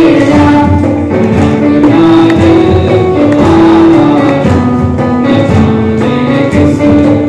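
Live student band playing a retro song mashup on keyboard, acoustic guitar and conga drums, the melody moving in held notes over a steady beat.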